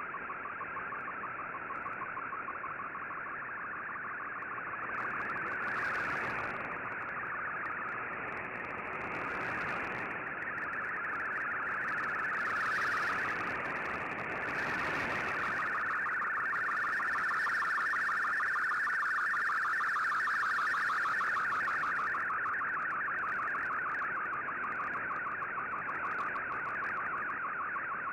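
Shortwave MFSK picture transmission from the Shortwave Radiogram broadcast, heard through an Icom IC-R8600 receiver in AM mode: a rapidly warbling data tone over steady shortwave hiss, swelling slightly in strength a few times as an image is sent.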